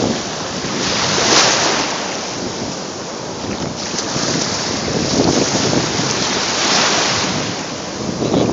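Pacific Ocean surf breaking and washing up the beach, with wind buffeting the microphone. The rush swells about a second and a half in and again midway through.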